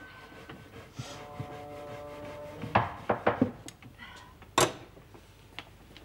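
A few sharp knocks on wood: three in quick succession, a louder one about a second and a half later, then a lighter one near the end.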